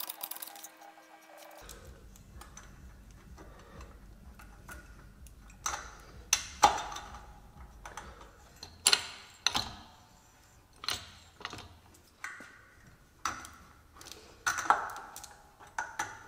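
A dozen or so sharp metallic clicks and clinks at uneven intervals: a steel snap ring being pushed and worked into its groove in a ZF 6HP26 automatic transmission's A-clutch drum while the return spring is held compressed in a hydraulic press.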